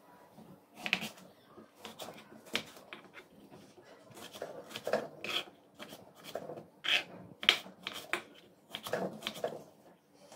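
Kitchen knife cutting a brinjal (eggplant) into chunks on a plastic cutting board: irregular crisp slicing strokes and knocks as the blade goes through the flesh and meets the board.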